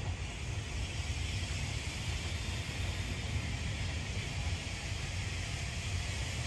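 Bulleid Battle of Britain class steam locomotive No. 34072 drifting slowly into the station tender-first, a steady low rumble with a hiss of steam over it.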